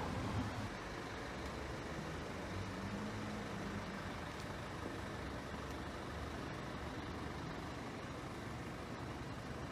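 Steady rumble of road traffic, with one engine's tone rising briefly about a third of the way in.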